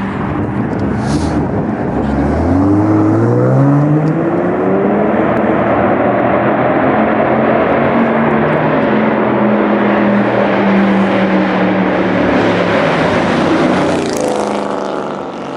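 A car's engine accelerating hard, its pitch climbing for a couple of seconds and then holding high and steady under a loud, rough exhaust note.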